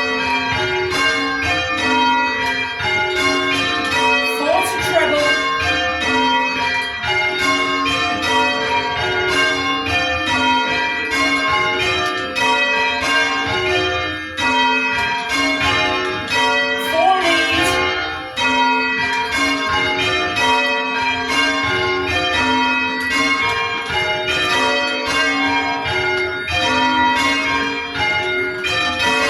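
Church tower bells being change-rung: the bells strike one after another in a quick, even, unbroken rhythm, their order swapped between rows as the changes are called.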